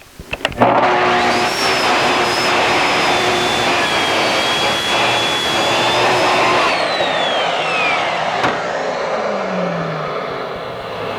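Festool track saw starting with a couple of clicks, its motor whining up to speed about half a second in and cutting plywood along its guide rail. About seven seconds in the whine glides down as the motor spins down, while a steady rushing noise carries on to the end.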